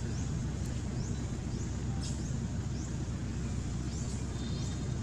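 Outdoor ambience: a steady low rumble, with short, faint, rising high-pitched chirps repeating about twice a second.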